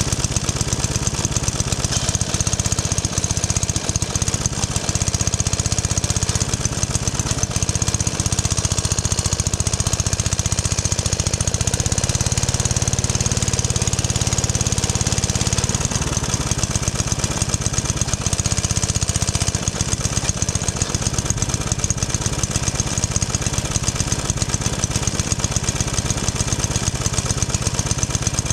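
Ryobi petrol lawnmower's small four-stroke engine running steadily, unloaded, with an even rapid beat and no change in speed. The engine is smoky and, in the owner's view, not running as well as it should, which he puts down to a fuel leak from a dirty carburettor.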